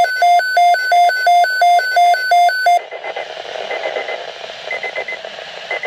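Weather alert radio sounding its alarm: a rapid, regular electronic beeping at about three beeps a second that cuts off suddenly near three seconds in. It gives way to radio hiss with faint short beeps about once a second.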